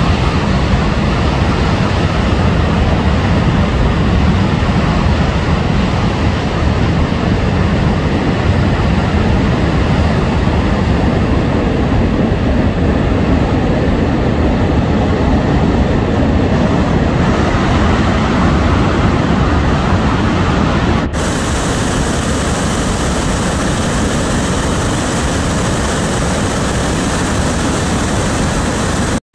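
Steady, loud rushing roar of steam venting from hot pyroclastic-flow deposits where rain water has reached the buried hot material: secondary, steam-driven (phreatic) activity. The roar changes slightly about two-thirds of the way through.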